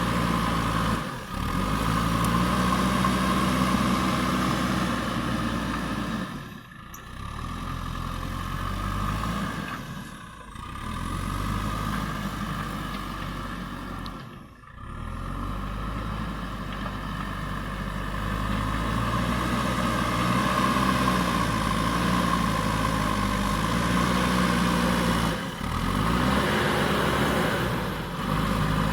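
Diesel engine of a JCB backhoe loader running and working, its pitch shifting up and down as the load changes, with several brief drops in the sound.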